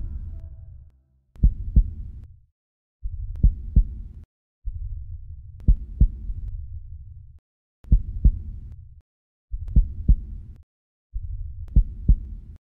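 Slow heartbeat sound effect: a double thump, lub-dub, about every two seconds, each beat wrapped in a low rumble that cuts out between beats.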